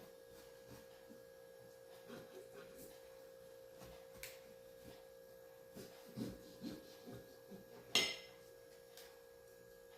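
Quiet room with a faint steady hum at one pitch, over soft handling and cutting sounds as a panettone is cut, with a sharper click about eight seconds in.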